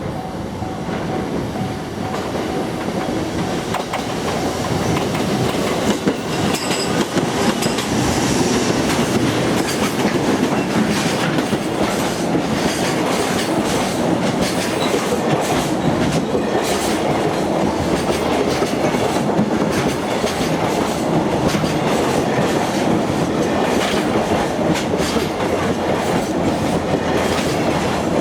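Long freight train hauled by a JR Freight EF210 electric locomotive passing close by, its wagon wheels clicking over the rail joints in a steady run. It grows louder over the first several seconds and then stays level.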